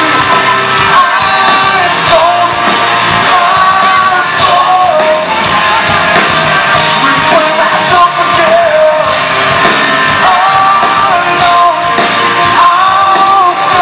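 Rock band playing loudly: a singer yells and sings over electric guitars and bass.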